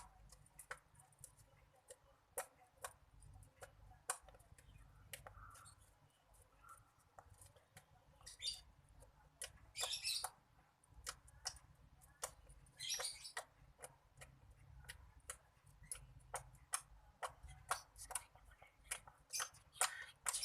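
Slime being stirred with activator: many irregular wet clicks and small sticky pops, with a few longer crackling squelches about 8, 10 and 13 seconds in.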